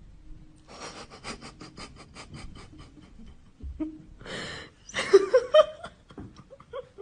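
A person laughing breathily: a quick run of short snickers, then a sharp breath and a louder, voiced laugh about five seconds in.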